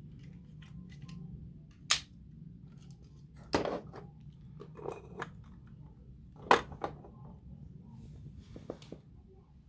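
Plastic parts of a Paw Patrol Patroller toy vehicle being handled: scattered sharp clicks and knocks, the loudest about two seconds in, again after three and a half seconds and past six and a half seconds, over a low steady hum.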